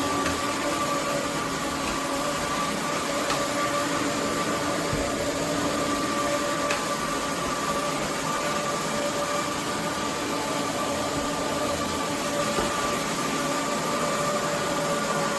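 Roborock F25 RT cordless wet-dry vacuum running steadily: an even rushing noise with a constant motor whine.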